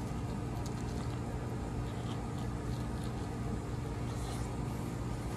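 Chewing of a deep-fried, breaded buffalo wing, with a few soft crunches, over a steady low mechanical hum.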